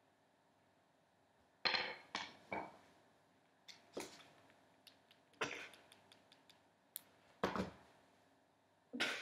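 Scattered sharp knocks and clicks at uneven intervals, starting about one and a half seconds in, a few louder ones with a short ring after them.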